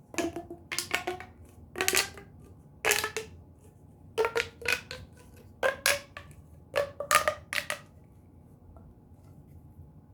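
A plastic fidget toy's pieces clicking and snapping as they are fitted back together: about ten short, sharp clacks in quick groups, then they stop about eight seconds in.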